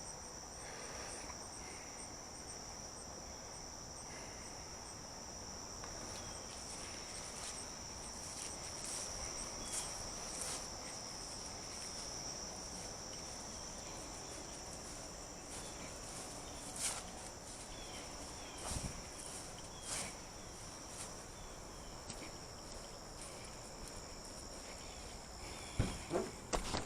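A steady, high-pitched insect chorus, like crickets trilling, with a few faint knocks in the second half.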